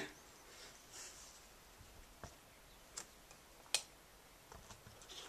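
Near silence with three sparse, faint computer-mouse clicks, the last one the sharpest.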